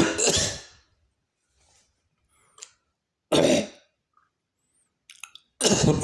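A person coughing in three short, harsh bouts a few seconds apart. It is a reflex cough set off by an itchy throat on waking.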